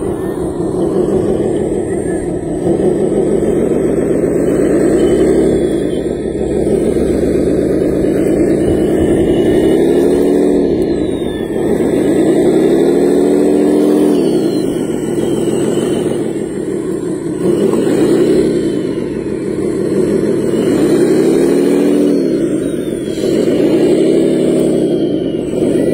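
Radio-controlled hydraulic wheel loader running as it pushes soil with its bucket. Its motor sound rises and falls in pitch in repeated swells, about every three seconds.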